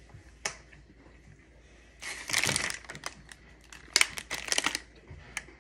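Plastic cookie packaging crinkling and rustling in two bursts, one about two seconds in and one about four seconds in, with a few small clicks between.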